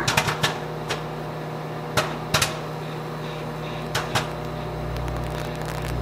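Popcorn kernels popping in a paper bag inside a running microwave oven, over the oven's steady hum. The pops are scattered, about ten in six seconds with gaps of up to two seconds. The popping is slowing down, the sign that the batch is nearly done.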